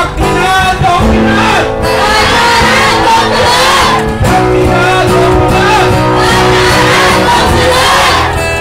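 A song sung over a loudspeaker system with music accompaniment, continuing without a break.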